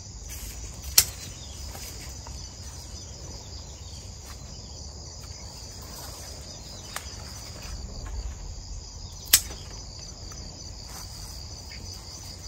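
Steady insect chorus, a high pulsing buzz, with two sharp clicks, one about a second in and one near the end.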